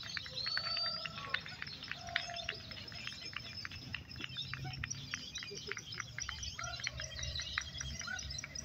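Competing caged songbirds chirping and whistling in quick, overlapping calls, with one rising whistle near the start, over the low murmur of a crowd.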